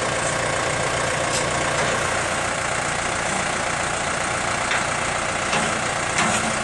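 New Holland T4050 tractor's diesel engine idling steadily, with a few faint clicks.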